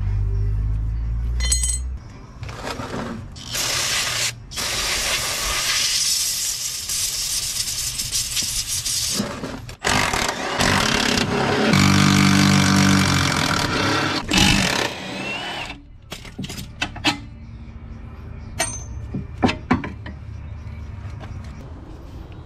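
A power tool running in several bursts of a few seconds each, followed near the end by scattered sharp clicks and knocks of tools on metal.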